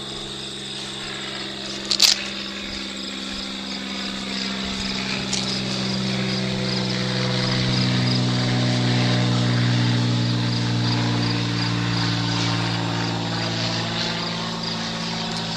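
A steady engine drone that swells over several seconds and then eases slightly as it passes, its pitch drifting a little. Insects chirp steadily in the grass throughout, and a single sharp click sounds about two seconds in.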